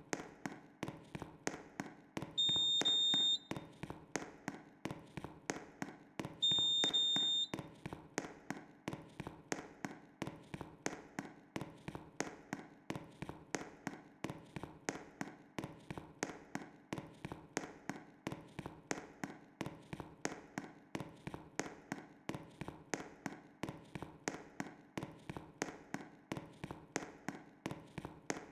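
Fire alarm system under test: steady sharp clicking, about three clicks a second, with two high electronic beeps, each about a second long, a few seconds apart near the start.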